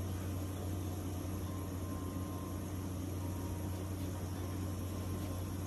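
Steady rushing hiss with a low hum under it: the gas burners of a 36-inch Blackstone griddle running on high.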